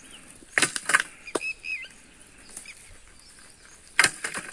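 Dry wooden branches cracking and clattering: three sharp knocks in the first second and a half and another near the end, with faint bird chirps in between.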